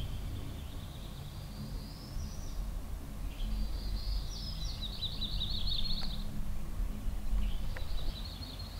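A songbird singing high, thin phrases three times, the middle one a rapid trill, over a steady low rumble.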